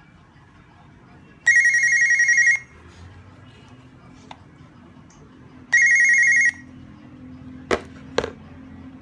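Hikvision DS-KIS202 video door phone sounding its electronic ringtone twice, each a warbling, trilling tone about a second long: a call coming in from the door station's bell button. Two sharp clicks follow near the end.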